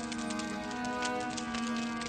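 Slow violin music with long held notes, over a wood fire crackling with irregular sharp pops.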